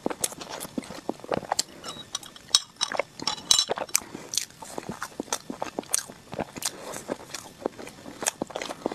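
Close-miked eating sounds: a person biting and chewing dessert, with irregular sharp wet mouth clicks and smacks several times a second.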